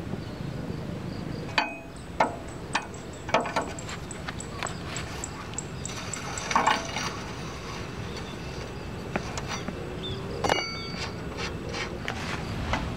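Steel tools and wheel parts on a hand tractor's axle hub clinking and clanking, with irregular sharp taps and one ringing clank about ten seconds in. A steady low rumble runs underneath.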